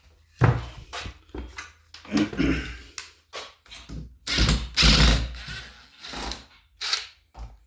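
Hand sanding of dried compound: irregular rubbing and scraping strokes of varying length, with a few knocks. The longest and loudest stroke comes about halfway through.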